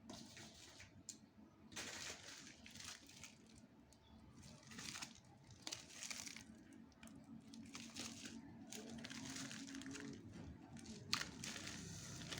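Faint crinkling and rustling of the packaging being handled, in irregular bursts.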